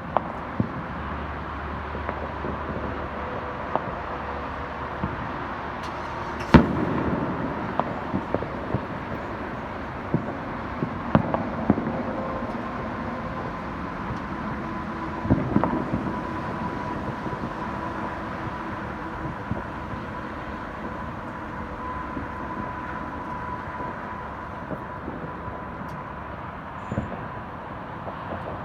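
Fireworks going off: scattered sharp bangs and pops over a steady background hiss, the loudest bang about six seconds in.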